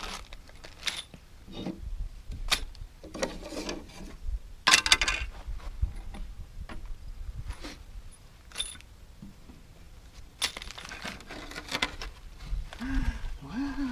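Wooden picnic table boards being handled and turned over: scattered knocks and clatter, with a louder clattering scrape about five seconds in.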